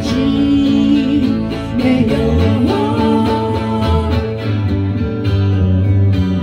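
Live rock song: electric guitar and electric bass playing through amplifiers, with a woman's voice singing over them.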